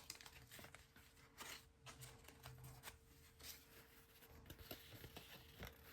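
Near silence, with faint, scattered soft rustles and ticks of trading cards being handled and flipped through.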